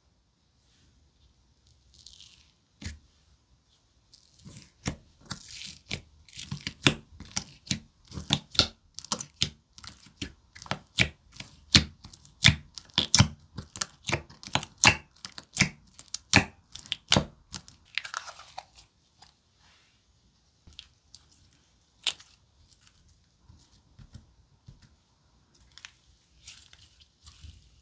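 Bubble Mojito slime, a mix of clear glue base, clay and snow powder, being squeezed and stretched by hand: a fast run of sharp pops and clicks, densest from about four seconds in to about seventeen seconds in, then thinning to scattered soft crackles.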